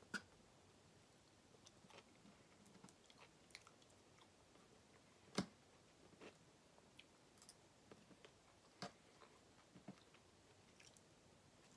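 A fork clicking and scraping against a metal sheet pan as the last sauce-covered fries are picked up, with one louder clink about halfway through, and quiet chewing between.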